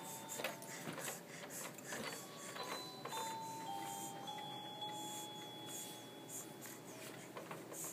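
Baby's electronic kick toy sounding a string of held beeping tones that step between pitches, with clicking and rattling as its parts are kicked.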